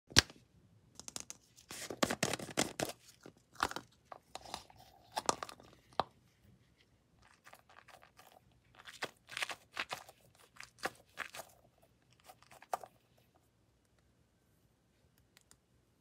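Close-up crackling and crunching from small toys being handled and squeezed, in irregular bursts of quick clicks. The bursts die away in the last few seconds.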